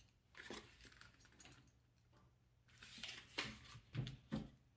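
Faint clicks and rattles of small robot-kit parts being handled and fitted together, in a few short clusters with a quiet gap midway.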